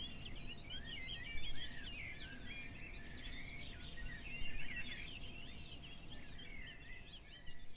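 Many small birds chirping and chattering at once, a dense flock chorus of short, quick calls that never stops, over a faint low background rumble.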